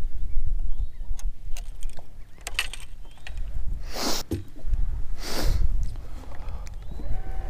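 Wind buffeting the camera microphone in a low rumble, with small clicks and knocks from a baitcasting rod and lure being handled. Two short whooshes come about four and five seconds in.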